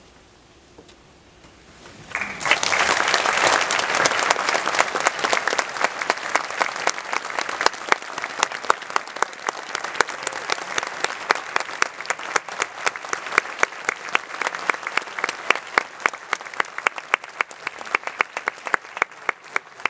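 Audience applauding after about two seconds of a quiet hall. The clapping starts suddenly and stays dense, with single sharp claps standing out more and more as it goes on.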